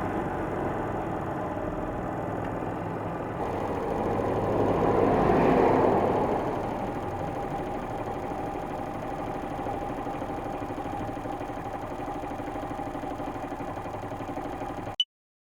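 Honda Little Cub's small 88cc single-cylinder engine running steadily, swelling louder for a couple of seconds around the middle, then cutting off suddenly near the end.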